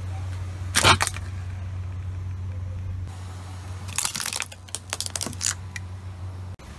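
A car engine idles with a steady low hum. About a second in comes a loud, short crackle. From about four seconds, a quick run of sharp cracks and snaps sounds as the car tyre rolls onto a plastic wired computer mouse and crushes it.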